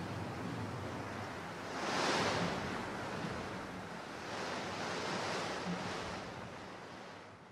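Sea surf: waves washing in, swelling loudest about two seconds in and again around five seconds, then fading out near the end.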